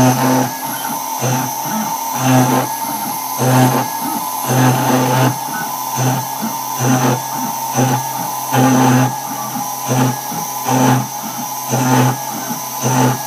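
CNC router engraving acrylic: the rotary-tool spindle runs with a steady high whine, while the axis stepper motors hum in short, irregular pitched bursts about once a second as the cutter moves along its path.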